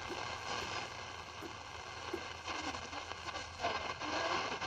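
Shortwave static and hiss from a Zenith Trans-Oceanic Royal 7000 radio's speaker, with faint, broken snatches of a distant station fading in and out.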